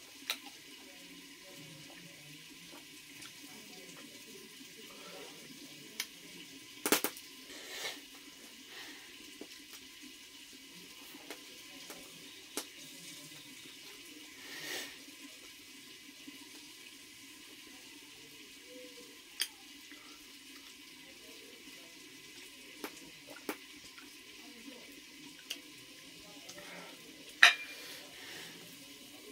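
A kitchen knife clicking and scraping against a plate while meat is cut, about a dozen scattered sharp clicks and knocks, the sharpest near the end, over a steady low hiss.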